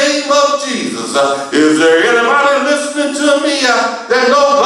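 A man singing a gospel song, holding long notes that slide and bend in pitch.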